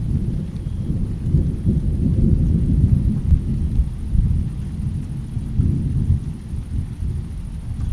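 Deep rolling rumble of thunder in a rainstorm, building for a couple of seconds, easing, then swelling again near the end.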